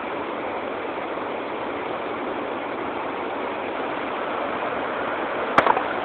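Steady rush of a rocky waterfall stream, water pouring over and between boulders. A sharp click with a brief clatter comes near the end.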